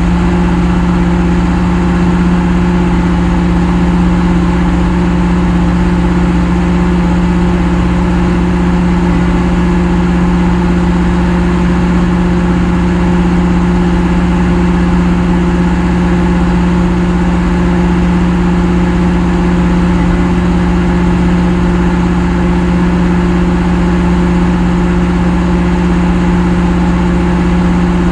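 Diesel engine of heavy equipment running steadily at constant speed, a loud low hum with no change in revs.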